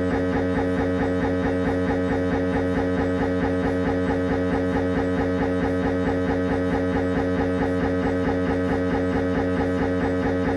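Siemens Magnetom Avanto MRI scanner running a head-scan sequence: its gradient coils buzz loudly in a steady, fast, evenly repeating pulse with a strong droning pitch.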